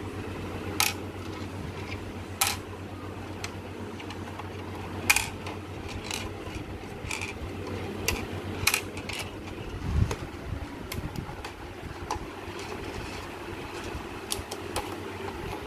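Scattered clicks and light knocks of a plastic Hyundai Creta fog-lamp housing and its small screws being handled as its nuts are undone, over a steady low hum.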